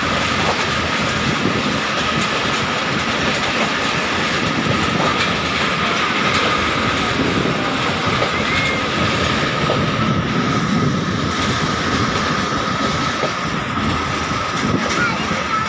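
Moving passenger train: the steady rumble and rattle of coach wheels running on the rails, with a steady high whine over it.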